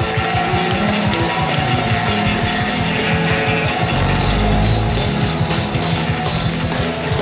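Upbeat Congolese gospel music played live by a band with a fast, driving beat, the choir singing and clapping along; sharp claps or cymbal hits stand out from about four to six seconds in.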